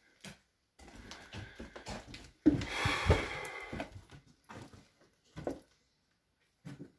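Footsteps crunching over broken foam insulation boards and debris on a wooden floor, with one sudden louder crunch about two and a half seconds in, then a few fainter steps.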